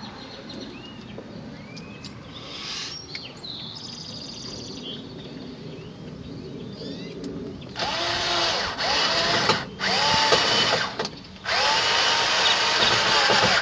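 Power drill driving screws in three runs during the second half, its motor whine rising and falling in pitch with the trigger. Faint bird chirps come earlier.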